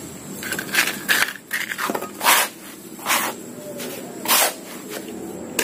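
Potting soil mix being scooped and scraped across a concrete floor with a small hand trowel, in a series of short scraping strokes; the loudest comes about two seconds in.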